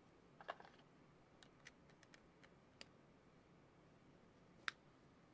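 Faint, scattered small plastic clicks and ticks from handling a Snexian Rock car-shaped phone while its battery is being fitted, with one sharper click near the end.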